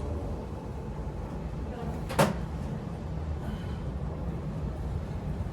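A single sharp knock about two seconds in, over a steady low rumble of background noise.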